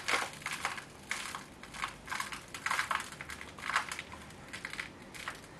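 Gritty sand-and-soil potting mix crumbled between the fingers and trickling into a plastic seed-tray cell, in irregular rustling, crunching bursts.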